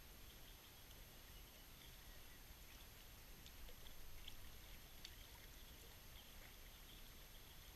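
Near silence: faint outdoor ambience with scattered faint chirps and ticks and a low rumble.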